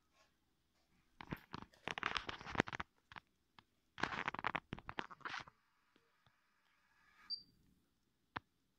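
Handling noise as a USB flash drive is worked into the rear USB port on the metal chassis of a car stereo head unit. It comes as two bursts of scraping and clicking, and a single sharp click sounds near the end.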